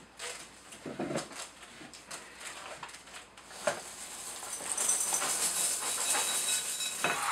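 A cardboard cereal box and its plastic liner rustling and crinkling as the box is handled and tipped, then frosted flakes pouring into a glass bowl, a steady hiss that builds over the last few seconds.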